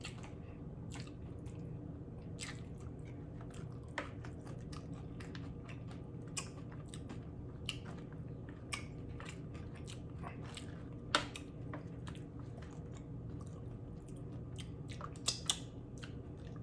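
Close-miked chewing of loaded steak nachos: crisp nacho chips crunching and cracking irregularly between bites, with the sharpest crack about eleven seconds in and two more near the end.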